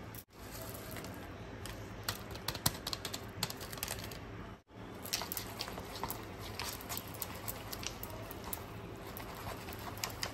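A metal fork clicking and scraping against a paper noodle bowl while it stirs sauce and toppings through instant noodles: a fast, uneven run of small clicks.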